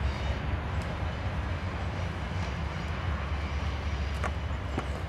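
Steady low outdoor rumble, with a couple of faint ticks near the end.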